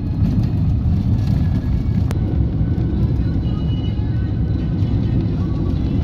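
Steady low rumble of a car driving on a dirt road, heard from inside the cabin: tyre and engine noise. Faint music sits underneath.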